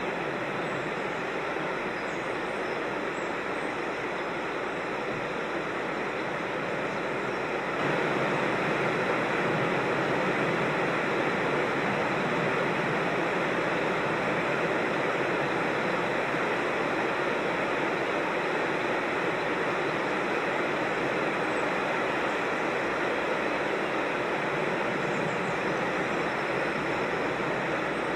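Steady rush of flowing creek water tumbling over rocks, a little louder from about eight seconds in.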